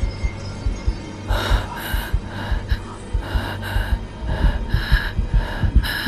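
A frightened character's racing heartbeat thumping fast, with quick panicked breaths about twice a second starting about a second in, over a faint low music drone: the sound of a panic attack in an animated film.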